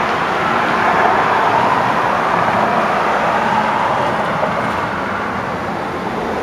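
Steady rush of street traffic below, cars passing on a city road.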